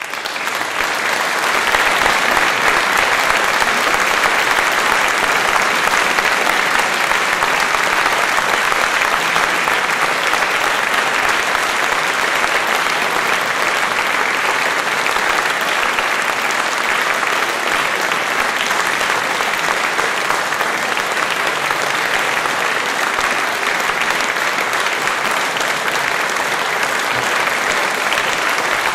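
Audience applauding: dense clapping breaks out, swells over the first second or so, then holds steady.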